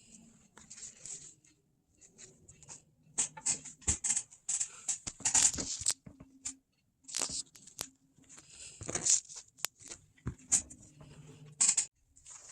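Cut upholstery pieces being handled and shuffled on a worktable: irregular rustling and sliding of material, with a few sharp clicks.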